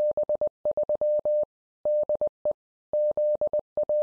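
Morse code: a single steady beep keyed on and off in quick dots and dashes, with short pauses between groups, as sent in amateur radio CW.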